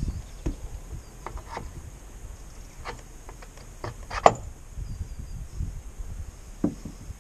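Scattered light knocks and clicks as a metal sailboat spreader is handled and fitted at the mast, with one sharper knock a little past halfway.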